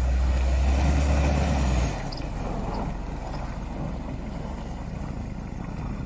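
Toyota Hilux Surf SUV's engine revving hard while its wheels spin in deep snow, not pulling the vehicle free. About two seconds in the revs drop off sharply and the engine runs on more quietly. The spinning is blamed on poor tyres.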